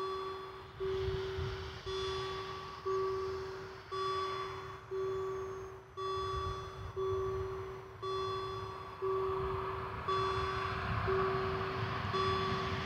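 AWD 2000 level-crossing warning bell ringing about once a second, each stroke a single clear chime that dies away, sounding while the crossing's barriers come down ahead of a train. A growing rushing noise rises underneath from about two-thirds of the way through.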